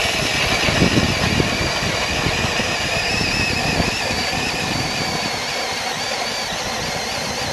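Lithium cordless drill turning an ice auger through lake ice: a steady electric motor whine over the grinding and churning of ice chips.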